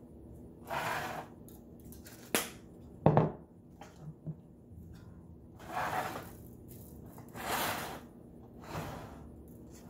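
A spice shaker shaken over a raw turkey: several short, noisy shakes of seasoning, with two sharp knocks a little over two and three seconds in.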